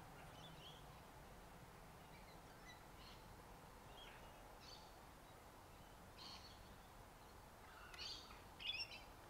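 Near silence outdoors, with faint scattered bird chirps and a louder little cluster of calls near the end.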